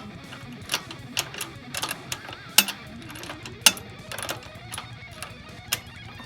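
Guitar music playing under a string of sharp, irregular metallic clicks and clanks from a hand ratchet being worked on the rear wheel hardware.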